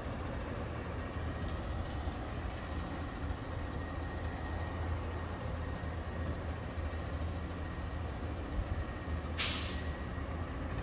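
Peterbilt garbage truck's engine running with a steady low rumble as the truck creeps closer. About nine seconds in, its air brakes let out a short, sharp hiss.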